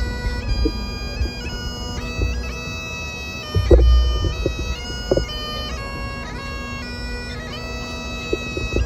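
Bagpipes played solo: a slow melody stepping between held notes over the pipes' steady drones. A brief low rumble about four seconds in.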